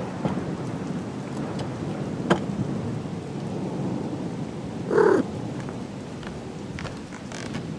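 Steady rain with a single short cat meow about five seconds in, and a faint click a little after two seconds.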